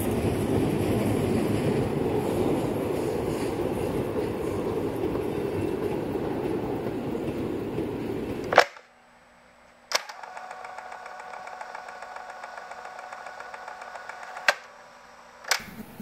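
A passing train hauled by the rack steam locomotive 97 501 rumbles away into the distance, fading slowly. About eight and a half seconds in, the sound stops abruptly with a click. After a second of near silence, a thin, evenly pulsing electronic buzz sets in: interference from a nearby mobile phone, broken by a couple of sharp clicks.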